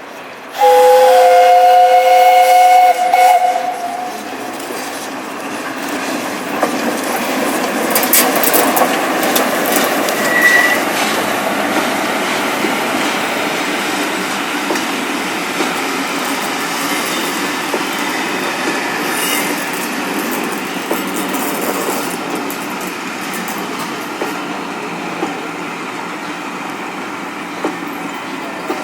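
Steam locomotive 60163 Tornado, a Peppercorn A1 Pacific, sounds its chime whistle, two notes together for about three seconds, half a second in. Then the train passes, a steady rush of wheels and carriages on the rails that builds over the next few seconds and carries on.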